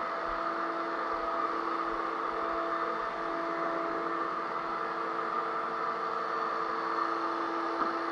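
Electric drywall sander running steadily: a continuous motor whir with a few steady humming tones over a hiss of sanding.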